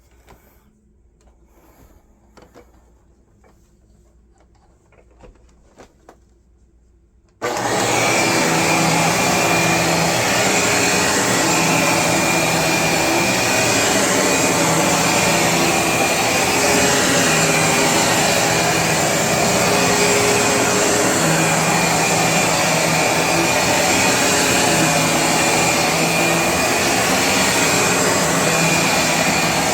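Dirt Devil Swivel Featherlite upright bagless vacuum cleaner, switched on about seven seconds in after a few faint clicks, then running steadily with a loud even rush of air.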